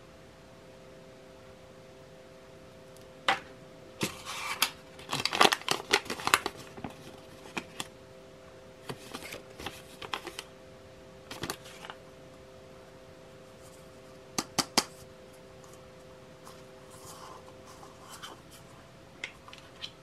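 Hands handling the unboxed parts, a USB cable and a paper instruction leaflet: irregular rustling, crinkling and sharp clicks, busiest about four to seven seconds in, over a faint steady hum.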